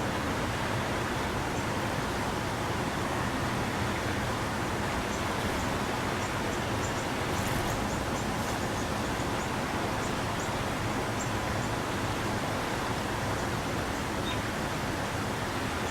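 Steady rushing outdoor background noise with no clear source. Faint, short, high bird chirps are scattered through the middle.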